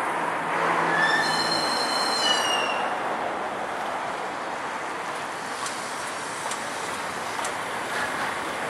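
Soviet L-class steam locomotive L-3653 approaching with its train: a steady rushing noise of the engine and its running gear. About a second in comes a high-pitched squeal of several tones, lasting about a second and a half and dropping slightly in pitch as it ends. A few faint clicks follow later.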